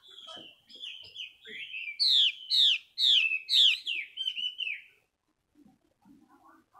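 Female Chinese hwamei calling: softer whistled notes, then a loud run of about eight downward-sweeping whistles, about three a second, that stops about two seconds before the end.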